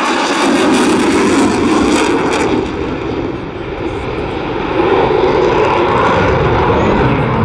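Eurofighter Typhoon FGR4 fighter jet's twin EJ200 engines, a loud, continuous jet roar during a rolling display pass. It eases briefly about three seconds in and swells back up about five seconds in.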